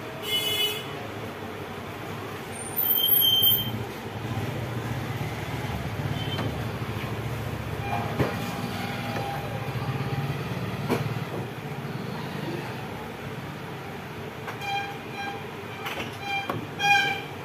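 A steady low hum with a few faint clicks. Short high-pitched toots sound about half a second in, again around three seconds, and several times in quick succession near the end.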